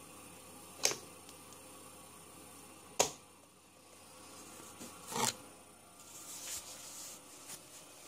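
Three sharp plastic clicks and knocks, the loudest about three seconds in, as a kettle's mains plug is handled and pushed into a plug-in smart power plug's socket.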